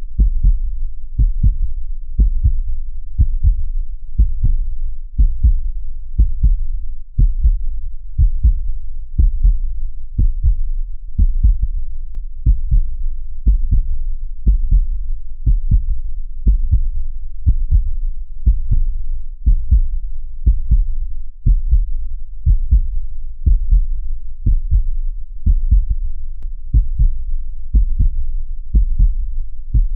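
A heartbeat beating steadily at about one beat a second, each beat a pair of low thumps (lub-dub).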